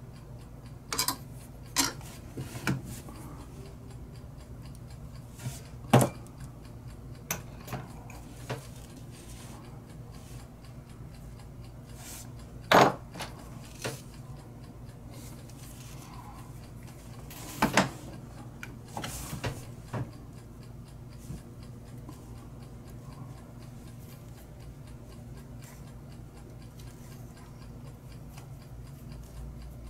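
Scattered, irregular small clicks and knocks of small metal lighter parts being handled on a workbench, over a steady low hum, with a few sharper knocks spread through.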